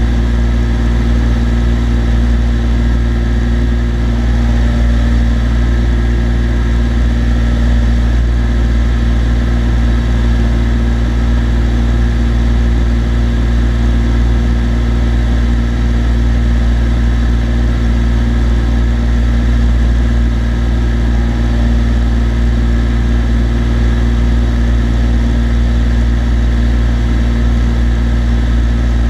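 Cessna TU-206D's turbocharged six-cylinder piston engine and propeller droning steadily in level cruise flight, with a low, even hum that does not change.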